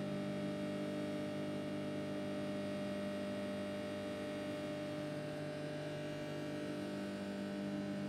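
Sharp microwave oven running, giving a steady low electrical hum while it heats popcorn kernels that have not yet begun to pop.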